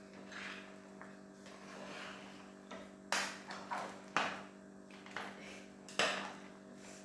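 A spoon stirring soup in a cooking pot, scraping softly and knocking sharply against the pot three times.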